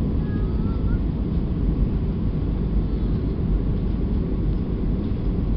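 Steady low rumble inside the cabin of an Airbus A320-212 on final approach: its CFM56 turbofan engines and rushing airflow, heard from a window seat.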